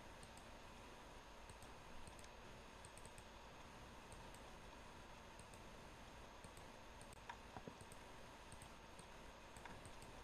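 Faint clicks of a computer mouse, scattered and irregular, a few a little louder about seven seconds in, over a low steady hiss.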